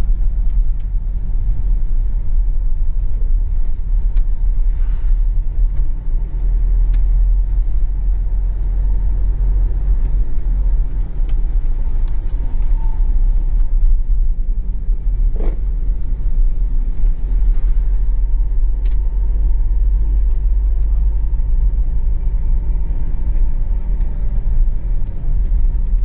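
Steady low rumble of a moving car's engine and tyres on the road, heard from inside the cabin, with a few faint ticks now and then.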